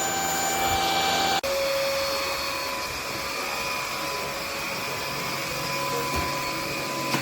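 MIUZZY cordless stick vacuum's motor running steadily, a high whine over airflow hiss. About a second and a half in, its tone changes abruptly.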